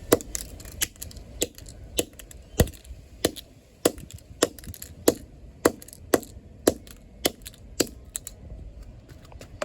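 Hammer repeatedly striking the broken pieces of a flip phone on gravel, a steady run of sharp knocks a little under two a second that stops about eight seconds in.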